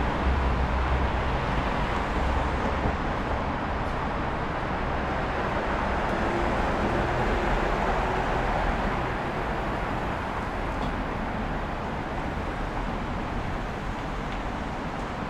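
Road traffic: a continuous wash of passing cars, tyre and engine noise, with a low engine rumble near the start that fades as a vehicle passes.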